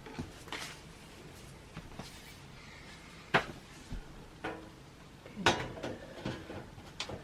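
Sheet-metal side panel of a PC tower case being handled and fitted into place: scattered metallic clicks and knocks, the sharpest about three seconds in and a small cluster near the end.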